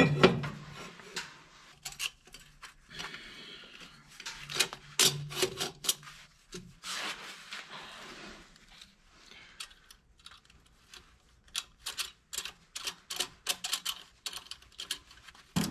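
Cast-iron exhaust elbow clinking and scraping as it is fitted onto the exhaust brake outlet. Near the end come runs of quick metallic clicks as the band clamp is tightened.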